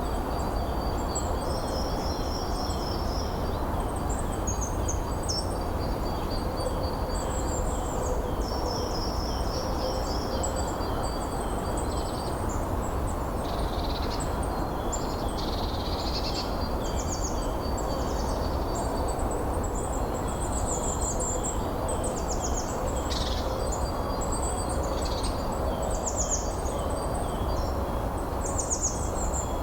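Several birds singing and calling in many short, high chirps and trills over a steady rush of wind.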